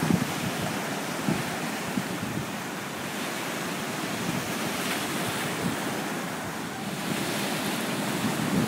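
Atlantic surf breaking against a low rock reef ledge and washing over it, a continuous rush of water. A few short low thumps of wind on the microphone come in the first couple of seconds.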